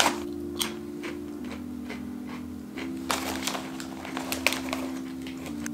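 Foil potato-chip bag crinkling in short, scattered crackles as it is handled, over background music of held notes that change pitch every second or so.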